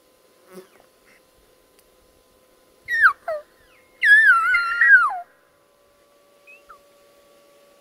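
Bull elk bugling: two short whistled notes that fall in pitch about three seconds in, then a longer, louder high whistle that wavers and drops sharply at its end.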